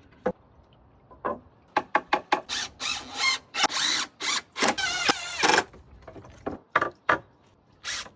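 Power drill driving screws into pallet wood in a series of short bursts, with a few longer runs in the middle where the motor's pitch wavers.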